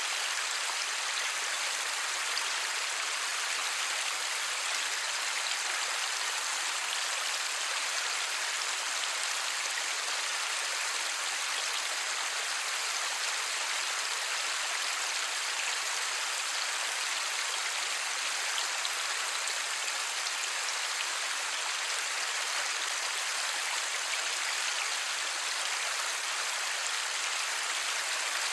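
Steady light rain falling, an even hiss of many small drops with no thunder.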